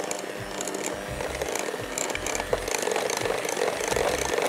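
Electric hand mixer running steadily, its beaters beating a thick butter-and-sugar filling in a glass bowl, with frequent light clicks.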